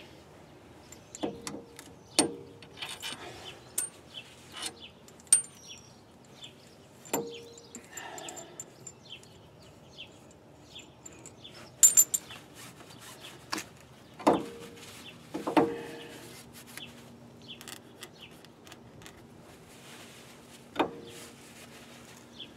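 Hand work at a bare wheel hub: scattered metal clinks and knocks of tools and parts, a few ringing briefly, with rags rubbing and wiping in between.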